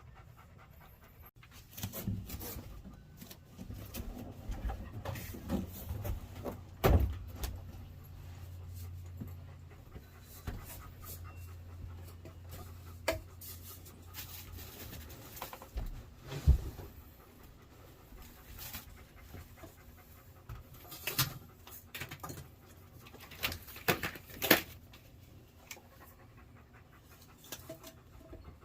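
A dog panting, with scattered clicks and knocks, the loudest about a quarter, half and most of the way through. A low steady hum runs through the first half.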